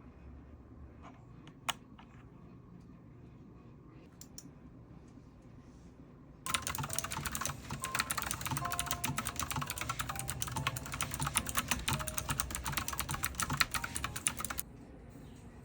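Fast typing on a new computer keyboard: a few isolated key clicks, then about six and a half seconds in a dense, rapid clatter of keystrokes that lasts about eight seconds and stops abruptly.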